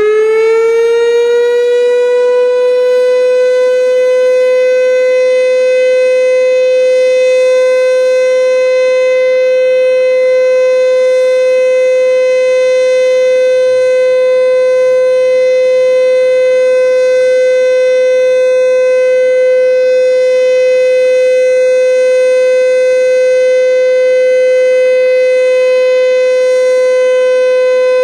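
ASC T-121 outdoor warning siren sounding a test: its single tone finishes rising in pitch about two seconds in, then holds a loud, steady note.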